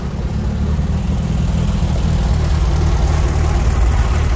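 Sand-rail dune buggy engine idling with a steady low rumble, growing a little louder toward the end.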